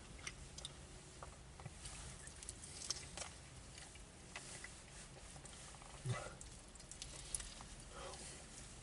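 Faint eating sounds from a person biting into and chewing a buffalo wing: scattered small clicks and crackles of chewing and handling the food, with a brief low murmur about six seconds in.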